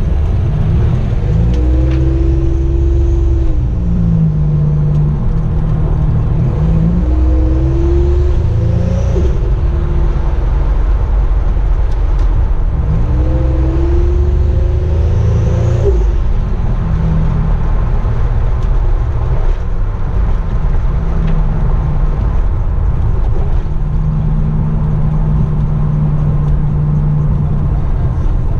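1987 Buick Grand National's turbocharged 3.8-litre V6 running as the car is driven, rising in pitch through the revs three times in the first half, then running steadily.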